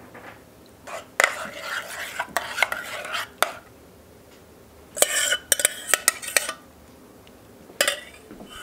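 Metal spoon scraping and clinking against a metal mixing bowl while dollops of pumpkin butter are spooned out, in two bouts: about a second in and again about five seconds in, with one more clink near the end.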